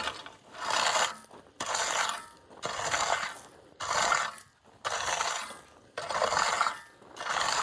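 A rake dragged through loose gravel in repeated strokes, about seven scrapes at roughly one a second.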